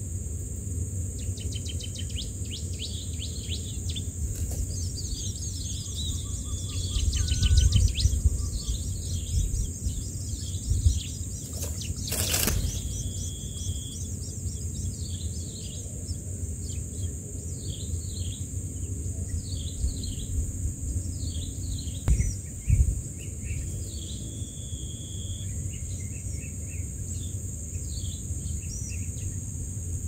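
Long-tailed shrike nestlings begging: many short, high, falling cheeps repeated throughout, over a steady high-pitched hiss. A single sharp click comes about twelve seconds in, and there are a few bursts of low rumble.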